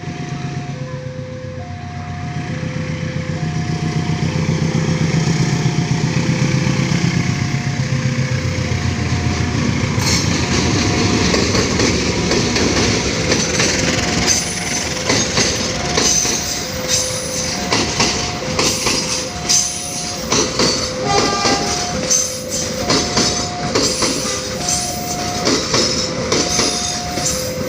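The KA Logawa passenger train's diesel locomotive running hard as the train pulls away, then its carriages rolling past with steady wheel clatter over the rail joints. An alternating two-tone electronic warning signal beeps without a break throughout, typical of a level-crossing alarm.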